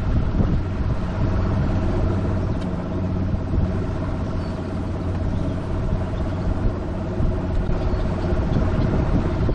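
Bass boat's motor running, a steady hum over a low rumble.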